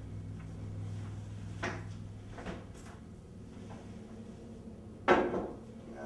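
Handling noises: a low hum dies away over the first few seconds, a few light knocks and clicks follow, and about five seconds in there is one much louder clunk with a brief ringing tail.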